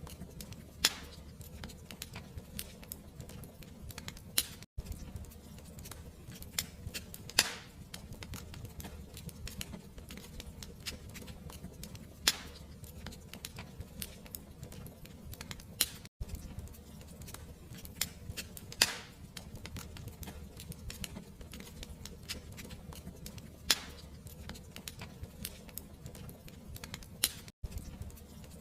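Wood fire crackling in a fireplace: a steady low rumble of flames under constant small crackles, with a sharper pop every few seconds. The sound cuts out for an instant three times, about every eleven seconds, where the recording loops.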